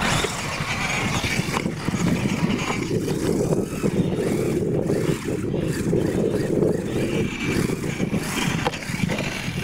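Radio-controlled monster truck racing over a dirt course, a steady motor buzz that wavers as the throttle changes.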